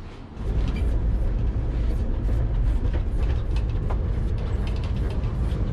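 Czech-built tram running on its rails, heard from inside the car: a loud low rumble that sets in about half a second in, with rattling and clatter over it.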